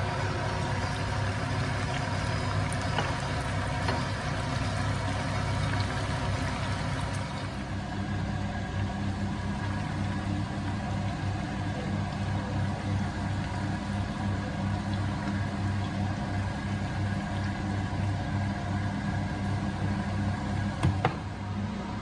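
A steady low mechanical hum, like a small motor running, with one sharp click near the end.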